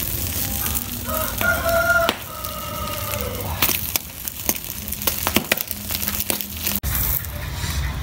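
A rooster crows once, its call ending on a falling note. Then a wood fire crackles with sharp snaps and pops.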